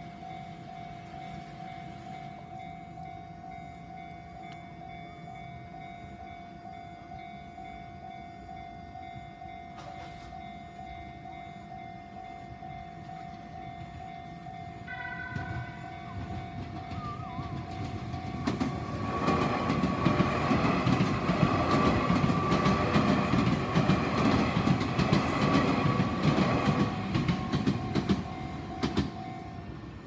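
Japanese level-crossing warning bell ringing steadily. About halfway a train horn sounds briefly. A few seconds later a train runs over the crossing for about ten seconds, a loud rumble with clattering wheels. The bell stops near the end as the train clears.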